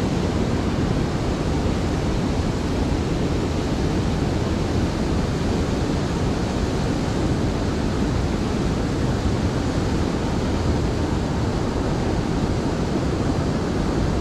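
Steady rush of a fast river current below a low dam, with water spilling over the weir, an even unbroken noise with no single events in it.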